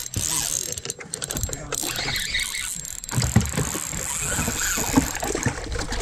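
Spinning reel being cranked to reel in a hooked striped bass, its gears whirring and clicking, with a few sharp knocks from handling the rod and reel.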